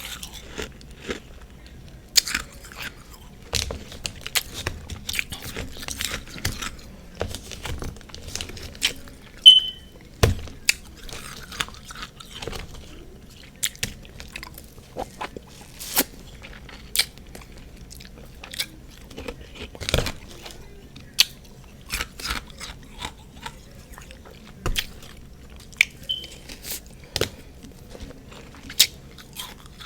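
Close-miked crunching and chewing of refrozen freezer frost mixed with powdered sugar and whipped cream, with irregular sharp bites and crunches.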